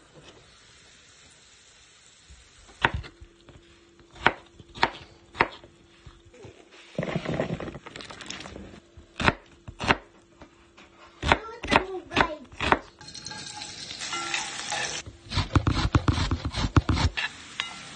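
Kitchen prep sounds: a knife chopping on a board in sharp single strokes, a batch of diced potatoes tumbling from a bowl into a pot, and near the end a carrot rubbed quickly up and down a metal box grater in a dense run of rasping strokes.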